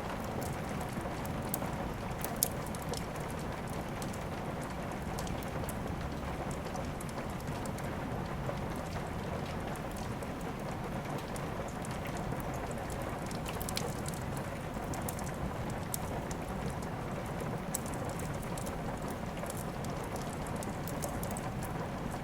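Steady rain with scattered sharp crackles and pops from a wood fire, one louder pop about two and a half seconds in.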